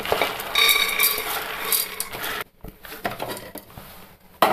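Soaked green gram (mung beans) poured from a bowl into an empty stainless-steel pressure cooker: a rattling rush of beans hitting metal, with the pot ringing, dying away after about two and a half seconds. A few light knocks follow, one sharper near the end.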